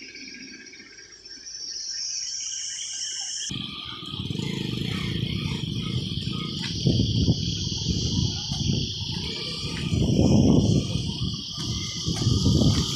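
Crickets or other insects chirring steadily in high-pitched bands. About three and a half seconds in, a loud low rumble starts and rises and falls unevenly, the loudest sound from there on.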